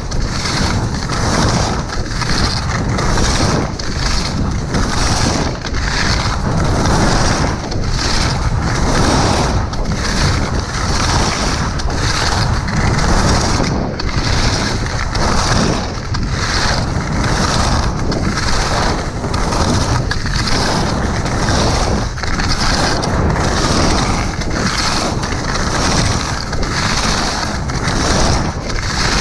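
Wind rushing over the microphone of a skier's GoPro Hero 5 at about 40–55 km/h, mixed with skis scraping and carving on the snow. It is a loud, steady rush with a deep rumble that surges about once a second.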